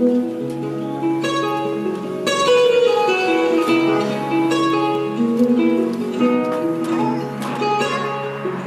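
Background music of plucked strings playing a melody.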